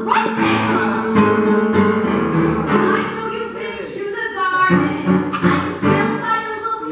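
Upright piano accompaniment with singers performing a musical-theatre song.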